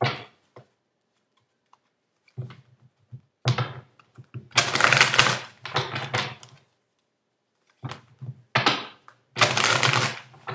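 A deck of tarot cards being shuffled by hand on a table, in three bursts of rapid flicking with short pauses between.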